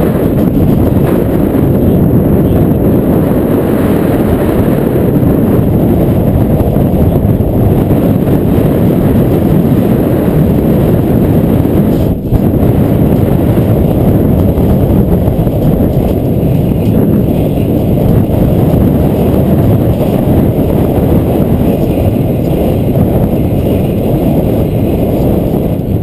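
Steady rushing wind buffeting the camera microphone, mixed with rolling road noise, during a fast downhill descent on asphalt; it briefly drops out about halfway through.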